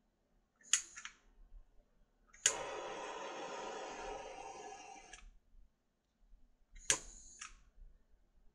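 Authenzo butane torch being fired: a couple of clicks, then a sharp click as it lights and the flame hisses steadily for nearly three seconds, fading before it stops with a click. Near the end another click brings a brief burst of hiss.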